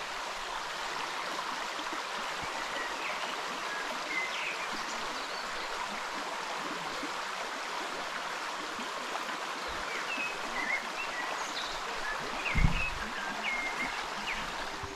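Stream water running with a steady rush, with scattered short, high bird chirps, and one dull thump about twelve and a half seconds in.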